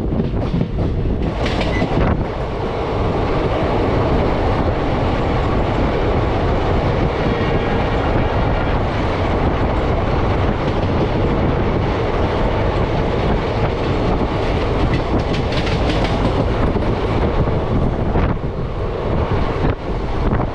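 Passenger express train running along the line, a steady rumble of the coaches with wheels clattering over the rail joints now and then.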